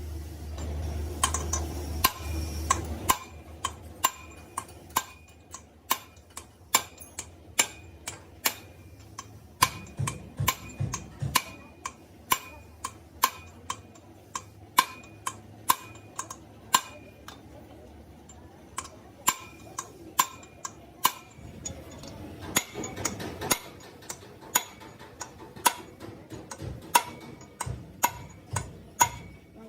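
Repeated light metal-on-metal taps, irregular, about one or two a second, each ringing briefly, typical of tapping on or working a metal engine part by hand. A low hum stops about three seconds in.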